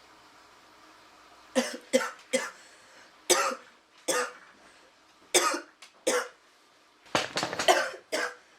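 A woman coughing in repeated short fits, a throat irritated by the thick smoke she has been breathing. The coughs start about a second and a half in, come in groups of two or three, and bunch together near the end.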